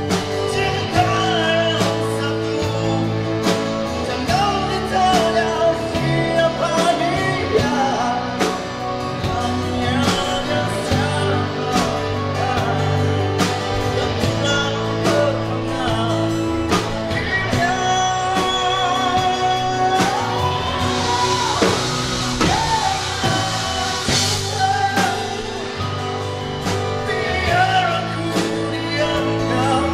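Live rock band playing: a man singing over electric and acoustic guitars, keyboard and a drum kit, amplified through a PA.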